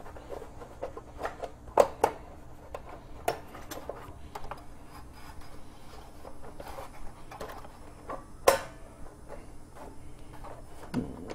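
Scattered clicks and knocks of a plastic air cleaner base and engine parts being handled on a Briggs & Stratton lawn tractor engine as the base is worked loose where it binds. The loudest knock comes about eight and a half seconds in.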